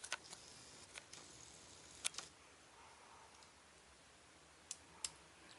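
Faint, scattered sharp clicks with light scraping between them, from a hobby knife and hand handling a small plastic model part fresh off its sprue. The clicks come in small clusters at the start, about two seconds in and about five seconds in.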